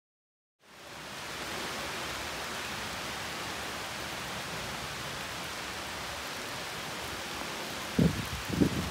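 Steady rain falling, fading in just after the start. Two low thumps near the end.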